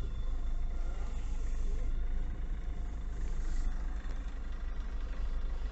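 A GAZon Next truck's turbodiesel engine running at low revs, heard from inside the cab: a steady low rumble with a faint thin whistle over it. The whistle at low revs is the one the driver puts down to the turbocharger.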